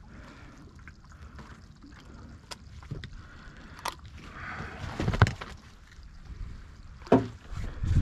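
A black sea bass being unhooked by hand: small clicks and rustles of handling, with two louder dull knocks about five and seven seconds in, over a low steady rumble of wind and water.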